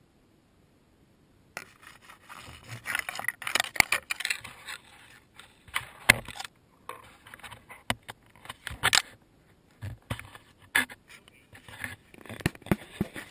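Gear being handled in a plastic fishing kayak: irregular scraping and rubbing with sharp knocks and clicks on the hull, starting about a second and a half in.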